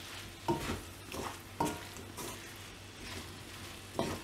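Wooden spatula stirring mushrooms and potato pieces in a speckled enamel wok. It scrapes and knocks against the pan in about five short strokes, the last the loudest, over a light frying sizzle.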